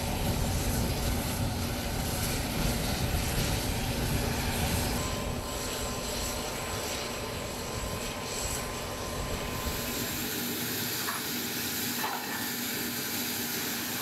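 Hovercraft engines and fans running steadily, with a steady hum and a faint high whine in the middle; the deep rumble drops away about ten seconds in.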